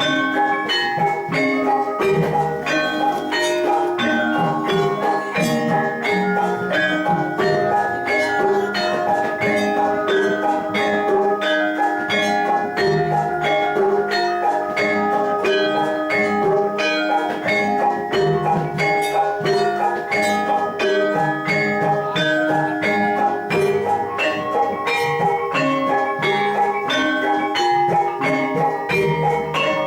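Javanese gamelan music for jathilan: bronze metallophones and gongs struck in a steady, fast, continuous rhythm of ringing notes.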